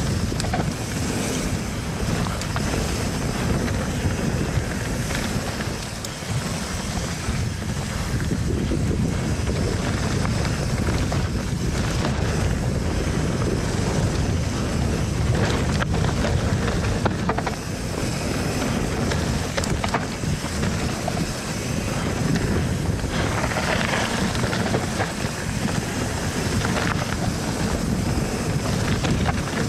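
Wind buffeting an action-camera microphone and the rush of a steel hardtail mountain bike riding fast down a rough trail, with occasional knocks and rattles from the bike. A louder hiss comes about two-thirds of the way through.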